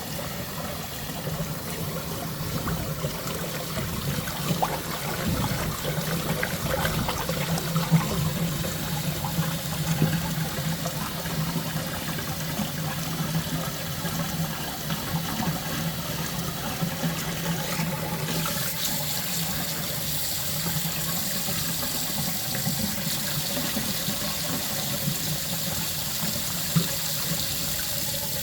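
Water running and flowing away through a cleared kitchen drain line, with a steady low hum under it. About 18 seconds in, a brighter rush of water joins in.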